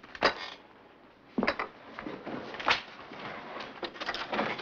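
A few scattered knocks and thumps, then a door handle being worked as the door is opened near the end.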